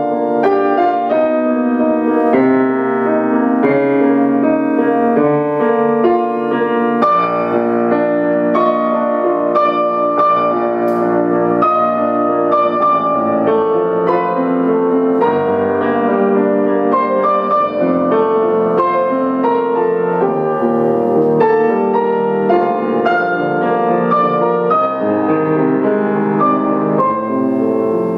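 Solo grand piano playing continuously, a dense flow of notes over sustained bass: a fantasy-form piano piece.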